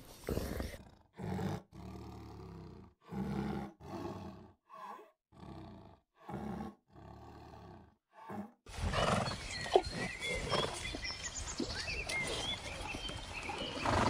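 Lion roaring in a series of short grunting calls, about ten in eight seconds, with brief silences between them. About nine seconds in, they give way to a steadier outdoor background with high chirps.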